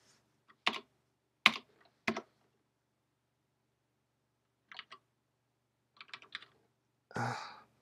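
Computer keyboard typing in sparse, separate keystrokes: a few single clicks, a pause of about two seconds, then a short run of quick keystrokes. Near the end comes a brief louder, noisier sound.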